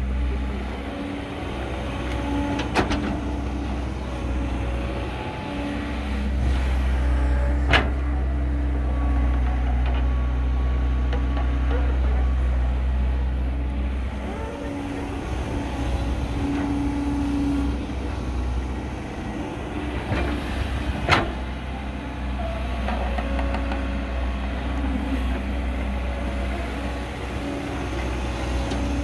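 Caterpillar 312 hydraulic excavator's diesel engine running under working load, its drone and hydraulic whine rising and falling as it digs and swings, with three sharp clanks.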